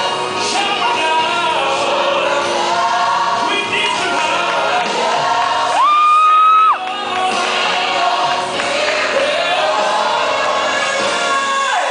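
Gospel choir singing with instrumental accompaniment, in a large hall. About halfway through, one voice rises to a loud high note held for about a second.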